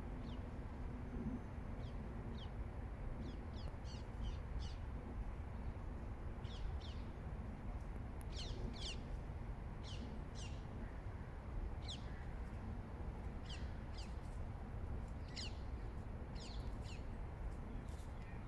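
Birds calling: a long run of short, high calls that slide downward, often in quick pairs, over a steady low rumble.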